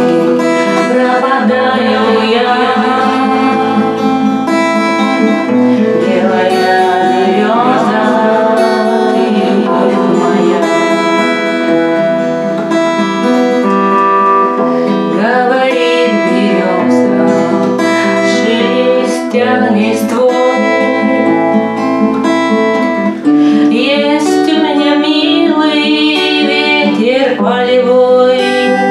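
A woman singing a Russian army song to her own strummed acoustic guitar, the voice wavering over steady chords.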